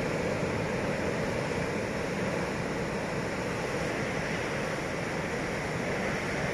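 Sea surf breaking steadily on a rocky shore, a continuous wash of waves.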